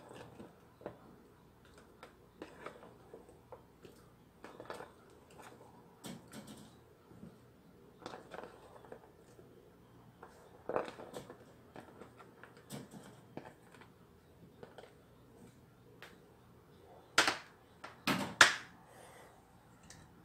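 Chunks of raw onion dropped by hand from a plastic lid into a plastic jar, with the lid and jar being handled: scattered soft taps and clicks, with a few louder sharp clacks near the end.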